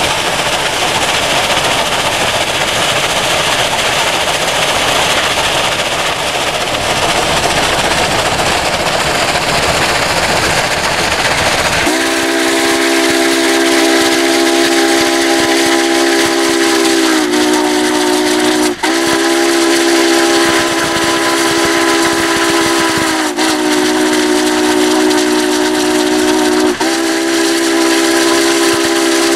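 Union Pacific 844's steam chime whistle, on a 4-8-4 Northern locomotive, blowing from about twelve seconds in. It sounds several tones at once as one long chord, dropping briefly in pitch three times and breaking off for a moment once. Before the whistle there is a steady rush of wind noise on the microphone.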